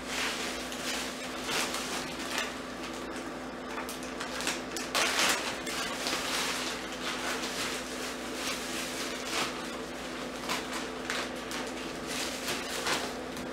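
Clear plastic packaging crinkling and rustling as it is handled, in uneven crackles, loudest about five seconds in.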